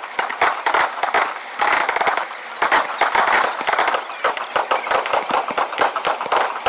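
Aerial fireworks going off in a rapid barrage: dense crackling from crackle stars, many sharp pops a second, with occasional deeper shell bangs mixed in.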